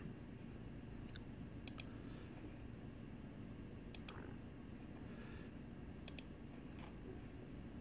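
Four clicks of a computer pointer button, each a quick double tick of press and release, spaced one to two seconds apart over a low, steady room hum.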